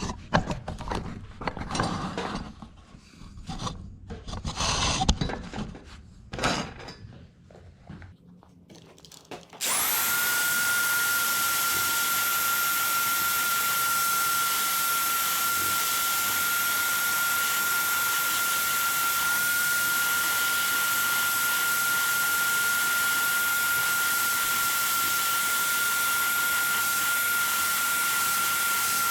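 Scattered handling and rubbing noises for about ten seconds, then a small power tool switches on and runs at one steady speed, with a constant high whine, as it scrubs tarnish off a cymbal.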